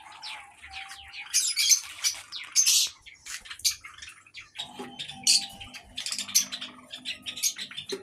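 Caged aviary birds, Java sparrows among them, chirping: many short, high chirps in quick clusters, coming and going. A faint steady hum runs underneath from about halfway.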